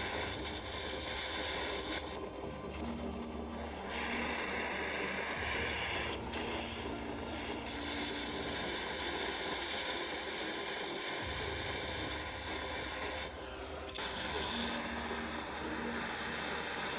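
Small gas torch flame hissing steadily while it heats silver solder on a sterling silver case, the sound shifting abruptly a few times where the shots change.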